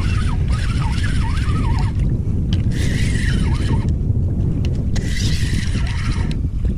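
Wind rumbling on the microphone, with water hissing and splashing along a fishing kayak's hull in surges that come and go. A faint wavering high whistle sounds during the first two seconds.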